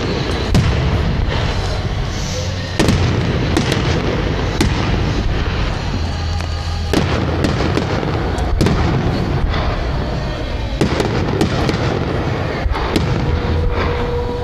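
Aerial fireworks bursting: a quick, irregular series of sharp bangs over a dense, continuous background of blasts.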